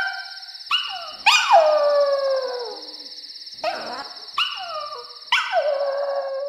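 A small dog howling and yelping: about six calls that jump up and slide down in pitch, the longest a drawn-out howl about a second in. A steady high trill runs behind them.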